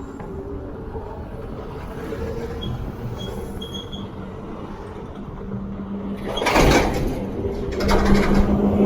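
A vehicle running with a steady low hum, with two louder rushes of noise in the last few seconds.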